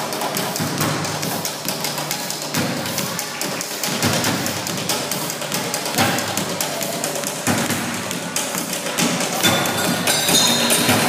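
Found-object percussion played as music: a stream of taps and knocks on plastic water jugs and bottles, with heavier thumps every second or two from a basketball bounced on the stage floor.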